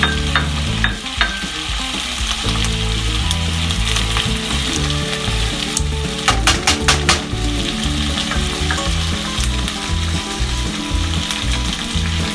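Food sizzling and frying in a non-stick frying pan while it is stirred, with a run of quick clicks from the utensil against the pan about six seconds in.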